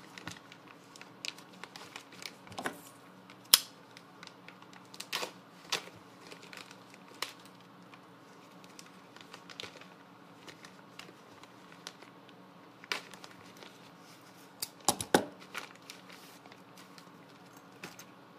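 Packaging being opened by hand: crinkling and tearing, with scattered irregular clicks and taps, the sharpest about three and a half seconds in and a cluster near fifteen seconds.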